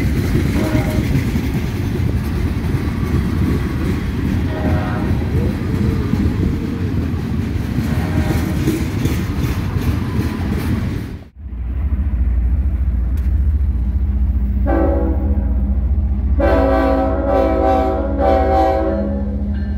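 A freight train of tank cars rolling past close by, wheels and cars rumbling and clattering on the rails. After a sudden cut, a Ferromex diesel locomotive approaches with its engine running and sounds its horn in two blasts, the second one longer.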